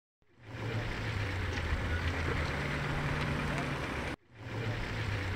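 Outdoor ambience of indistinct background voices over a low steady hum, fading in at the start and dropping out briefly about four seconds in before fading back.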